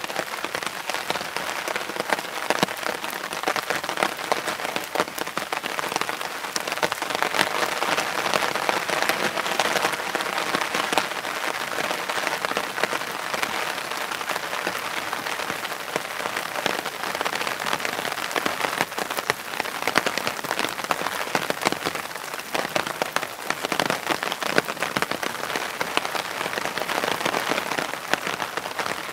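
Steady rain falling on surfaces, a dense hiss with many small drop impacts ticking through it.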